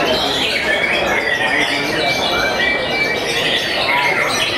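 Caged white-rumped shamas (murai batu) singing over one another in a dense, continuous chorus of whistled phrases, chatters and quick glides, over a murmur of crowd voices.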